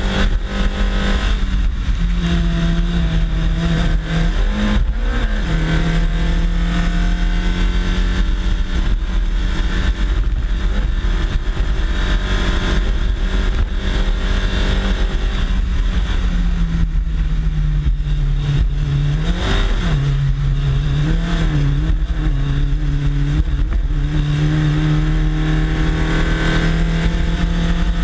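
Race car engine pulling hard uphill, its note mostly steady, dropping and rising a few times past the middle as the car works through the bends. A heavy low rumble of wind and road noise on the bumper-mounted microphone runs under it.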